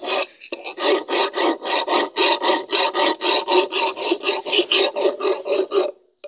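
Round steel file rasping back and forth through the eye of a rusty hammer head, metal on metal, in quick even strokes of about five a second. The filing breaks off briefly near the end.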